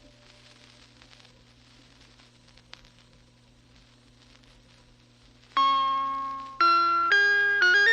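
A pause between music tracks with only a faint steady low hum, hiss and a single click, then, about two-thirds of the way in, a tune on bell-like struck notes starts, each note ringing and fading before the next.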